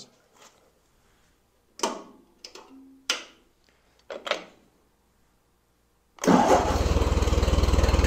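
1949 Ford 8N tractor's four-cylinder flathead engine comes in suddenly about six seconds in and runs steadily and loudly at an even pace, after a few short clicks and knocks. It is running on a freshly repaired exhaust manifold, where the owner finds no more leak, though he finds one where the exhaust pipe joins the manifold.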